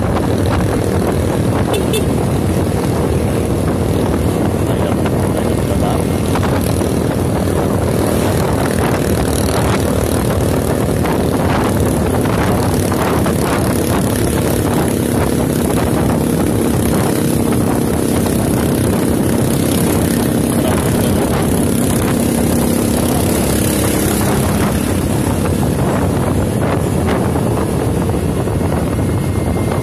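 A motorcycle running at road speed: steady wind noise on the microphone, with the engine's drone underneath.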